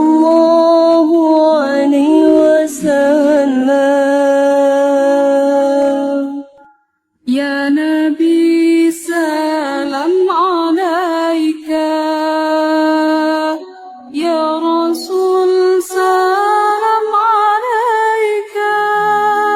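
A solo voice singing a sholawat, an Islamic devotional chant praising the Prophet Muhammad, with no instruments audible. The notes are long and held, with wavering ornaments, and the singing breaks off briefly about a third of the way in.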